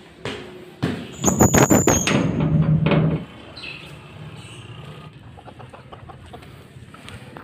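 A metal door with a sliding barrel bolt rattling and squealing as it is worked, a quick run of sharp metallic clatters that is loudest about a second to three seconds in. After it, chickens clucking softly among light ticks.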